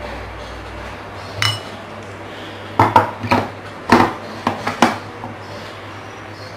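Plastic bowl and lid of a small electric food chopper being fitted back onto its base: a single clink, then a quick series of sharp plastic clicks and knocks over about two seconds as the parts are seated and locked.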